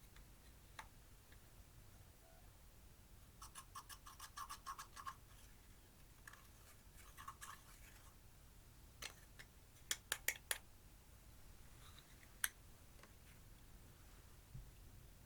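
Quiet scraping and rapid fine crackling as eyeshadow makeup is broken up, followed by a quick run of four sharp clicks and one more click a couple of seconds later.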